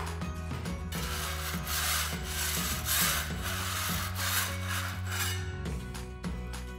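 Hammer scraping loose old plaster off a masonry wall in several rasping strokes, knocking off render that has come away. Background music with a steady beat plays throughout.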